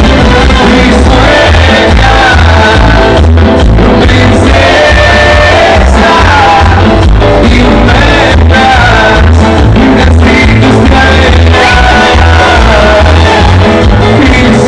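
Loud party music with a steady heavy bass beat and a sung melody line.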